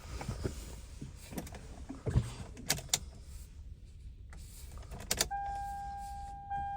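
Clicks and rattles in a Toyota Celica's cabin as the ignition is switched on to test a newly replaced radio fuse. About five seconds in, a steady electronic tone comes on and holds, with one short break near the end.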